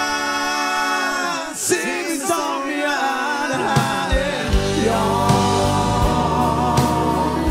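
Swedish dansband pop song with keyboards, electric guitar, bass and drums. About a second in, the bass and drums drop away under held chords with sliding notes, and the full band comes back in about three and a half seconds in.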